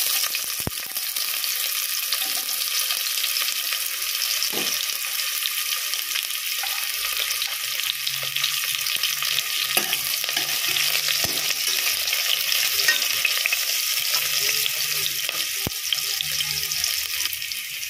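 Sliced onion frying in hot oil with cumin seeds, a steady loud sizzle.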